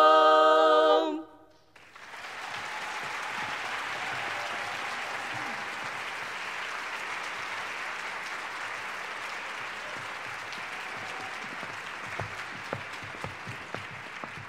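A women's barbershop quartet's final held a cappella chord ends about a second in. After a brief silence, the audience applauds steadily.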